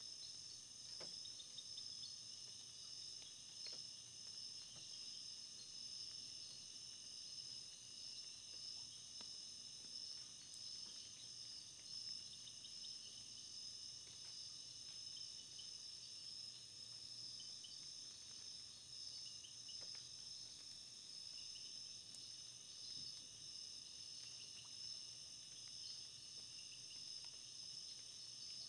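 Faint, steady high-pitched trilling of insects, with a few soft ticks scattered through it.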